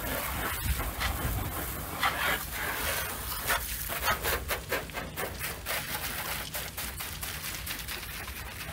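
Garden hose spray nozzle rinsing water over a car's bodywork and glass, a steady hiss of spray on the panels. From about halfway in, the hiss thins out and gives way to a run of short sharp ticks and taps.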